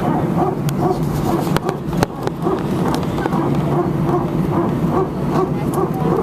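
Airbus A319's hydraulic power transfer unit (PTU) running, heard from inside the cabin: a strange, evenly repeating pulsing sound, about two to three pulses a second, over a steady low hum. This is the well-known 'barking dog' noise of the A320 family.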